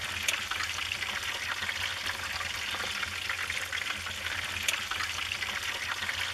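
Wood fire crackling: a steady hiss with many small pops and a few sharper cracks, over a low rumble.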